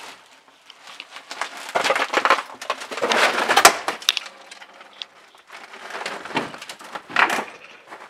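Footsteps crunching and crackling over a thick layer of dried bird droppings and loose wood debris, in several uneven bursts.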